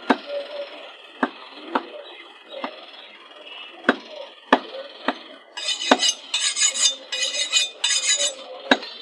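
Meat cleaver chopping beef on a wooden stump block: heavy single strikes at an irregular pace of roughly one a second. For a couple of seconds past the middle, quick bursts of ringing metallic scraping.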